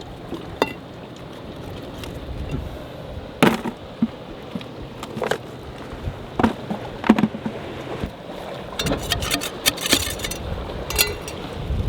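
Metal tool striking and prying at a red oyster's shell: sharp clicks and taps, a few spaced a second or two apart, then a quick cluster about nine to ten seconds in, over a steady hiss.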